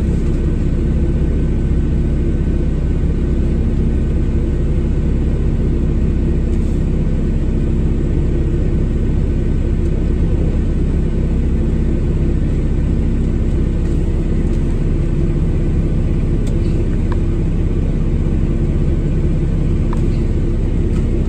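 Truck engine idling steadily, heard from inside the cab.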